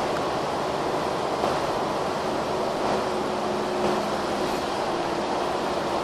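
Steady interior noise of a Mercedes-Benz Citaro O530N city bus under way: diesel engine hum mixed with tyre and road noise.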